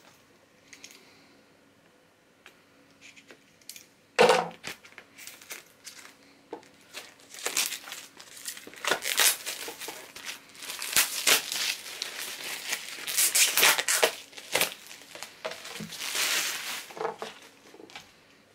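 Clear plastic shrink-wrap being torn and peeled off an LP sleeve, crinkling and crackling in dense bursts through the second half. A single loud sharp crackle comes about four seconds in.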